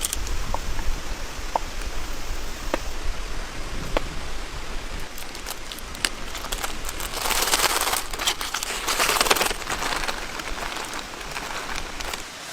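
Rustling and crinkling from something being handled, with a few sharp clicks, over a steady patter of rain. The rustling is loudest and densest about seven to ten seconds in.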